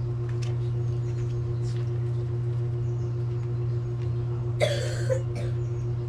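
A person coughing briefly about four and a half seconds in, over a steady low hum.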